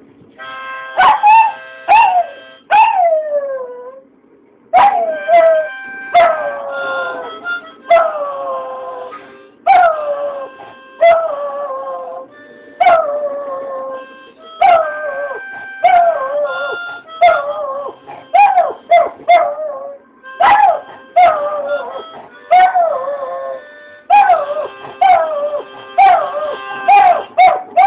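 A dog howling along to a blues harmonica: over and over, one howl after another slides down in pitch while the harmonica holds steady chords underneath.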